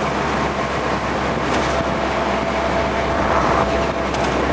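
Steady engine and road noise of a Jeep, heard from inside the cabin while it is driven.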